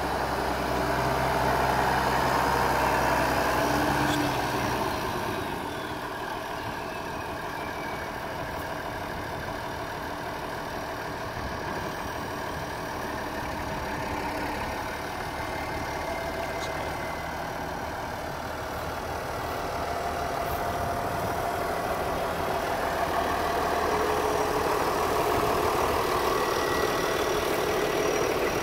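International Harvester 5088 tractor's six-cylinder turbo diesel running steadily at idle, louder near the start and again toward the end.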